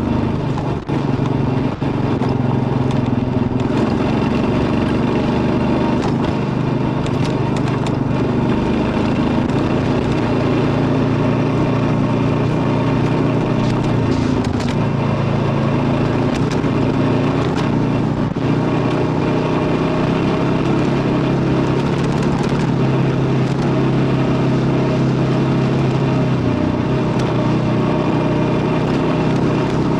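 Kawasaki KLR650's single-cylinder engine running steadily under way, with wind and road noise. The engine note drops briefly a few times.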